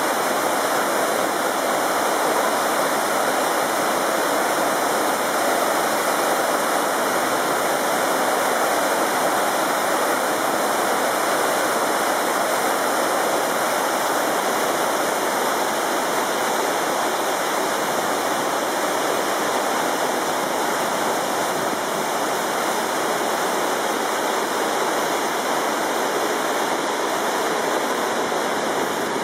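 Whitewater cascade of a mountain waterfall rushing over rock into a pool: a steady, even roar of falling water that does not change.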